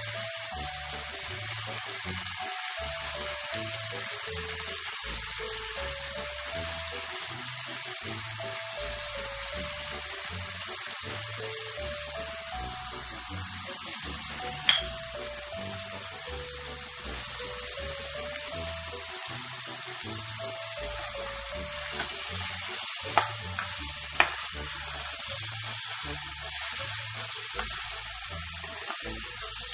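Food frying in hot oil in a pan, a steady sizzle, with three sharp clicks about halfway and near the end. Background music with a simple stepping melody and a bass line plays throughout.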